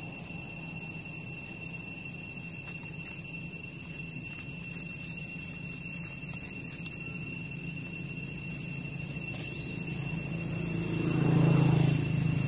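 Outdoor ambience: steady high-pitched tones, like an insect drone, over a constant low motor hum that swells louder about eleven seconds in.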